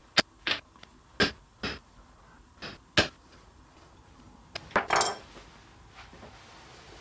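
Brass-headed mallet tapping a center punch into a cherry board to mark hole centres: about seven sharp single taps in the first three seconds, unevenly spaced. A brief cluster of knocks follows about five seconds in.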